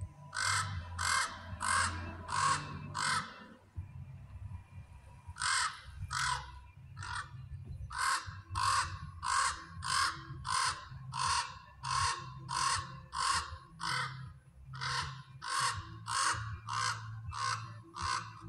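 Raven calling over and over: a rapid series of short, harsh caws, about one and a half a second, in runs broken by brief pauses. The filmer suspects it is calling out because she is close to the nest.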